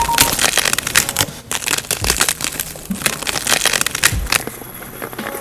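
A quick run of sharp crunching and clicking noises, which thins out and grows quieter after about four seconds.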